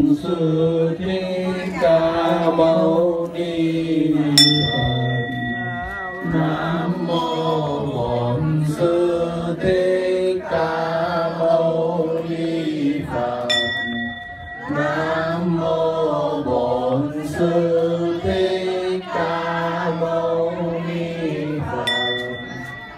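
A group of voices chanting together in Vietnamese Buddhist style. A small handheld bowl bell is struck three times, about nine seconds apart, and each strike rings on for a second or two over the chanting.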